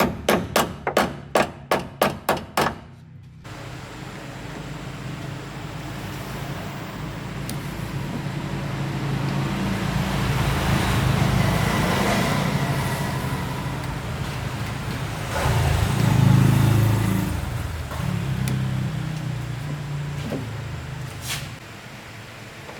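A motor vehicle's engine running as it drives. It grows louder, peaks about two-thirds of the way through, then fades away. A quick run of sharp, regular knocks, about four a second, fills the first three seconds.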